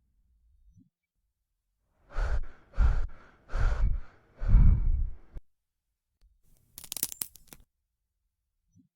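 Four heavy, breathy exhalations in a row, like a person sighing or panting, followed a moment later by a brief burst of sharp crackling clicks.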